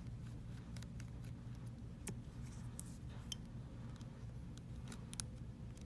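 Small precision screwdriver working the tiny screws of an iPhone X's earpiece and sensor bracket: light irregular metallic clicks and ticks as the bit seats, turns and the screws come free, over a steady low hum.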